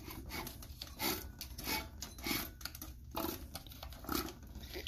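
Hands working on a small Honda single-cylinder engine with its valve cover off: about five short rasping, rustling scrapes, spaced unevenly about a second apart, over a low hum.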